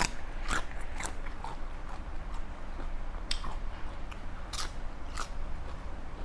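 Close-up chewing of spicy Thai seafood salad, with a few sharp crunchy bites scattered through.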